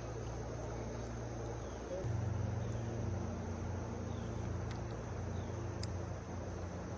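Steady outdoor ambience: a low, even rumble that grows louder about two seconds in, under a constant high insect drone, with a few faint ticks.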